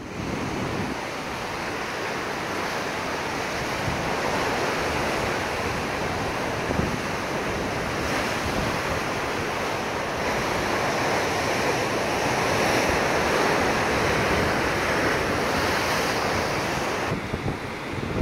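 Rough sea surging and breaking over rocks along a rocky shore: a steady rush of surf.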